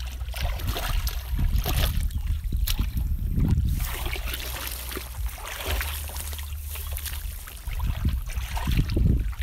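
Shallow muddy water sloshing and splashing in irregular surges as a person wades through it and gropes with his hands in the mud.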